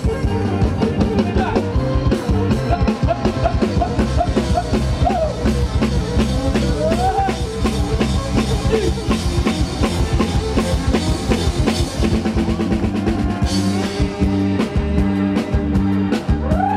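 Live kantrum band playing: a drum kit keeps a steady beat under electric bass, with a bowed two-string fiddle carrying a wavering, gliding melody. The cymbals come in brighter about three-quarters of the way through.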